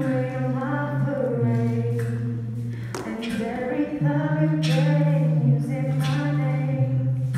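A cappella vocal music from beatboxers: a sung bass line of long held notes shifting pitch every second or two, under several voices in harmony, with beatboxed percussive hits about once a second.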